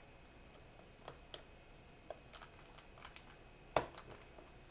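Scattered sharp plastic clicks from a ZiFriend ZA98 mechanical keyboard as a stiff switch is pried at to remove it, with one louder click near the end. The switch is not coming free.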